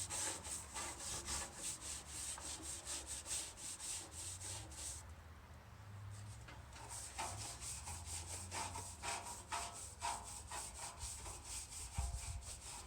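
The old toolbox being rubbed down by hand in quick back-and-forth strokes, several a second. The strokes break off for a moment about five seconds in, then resume.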